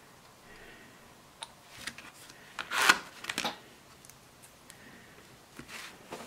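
Nail-stamping tools handled on a desk: a few light clicks and taps, then a short scrape about three seconds in, with a softer second one just after, as the stamper and stamping plate are worked.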